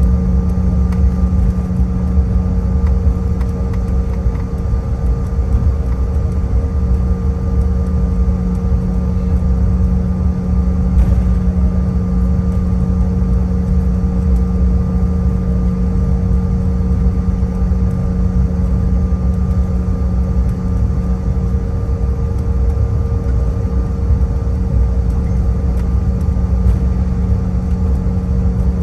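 Cabin noise of a Bombardier CRJ-700 regional jet taxiing: a steady low rumble of the wheels rolling over concrete, with the even hum and a few steady tones of its rear-mounted General Electric CF34 turbofans at idle thrust.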